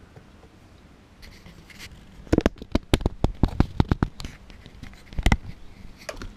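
Handling noise on a wooden tabletop: a quick run of sharp knocks and clicks starts about two seconds in and lasts about two seconds, with a couple more knocks near the end, as the camera and a small firework shell are moved around.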